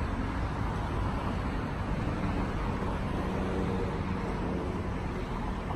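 Steady city traffic noise from cars passing on a wide street.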